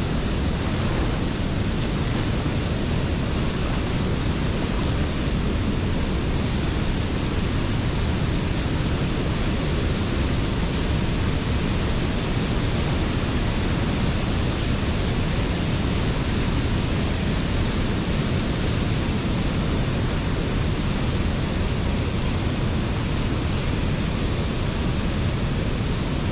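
A broad waterfall pouring over a rock ledge, with white water churning at its foot, heard close up: a steady, unbroken rush of water.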